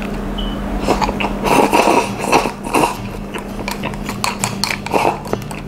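Eating rice from a ceramic bowl held to the mouth with chopsticks: irregular clicks of chopsticks against the bowl, with chewing and mouth noises picked up close by a lapel microphone, busiest in the first few seconds.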